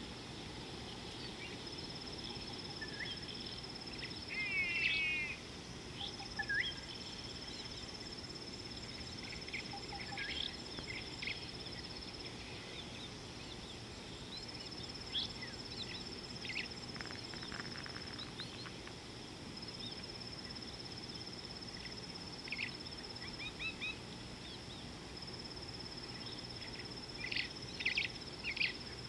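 A steady, high-pitched insect trill that breaks off and starts again several times, over a low background hiss. Short bird chirps and calls come scattered through it, the loudest a quick run of chirps about four seconds in and a cluster near the end.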